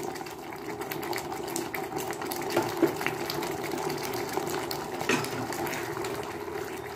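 Thick cornstarch-based Manchurian gravy boiling in a non-stick pan: a steady bubbling with many small pops.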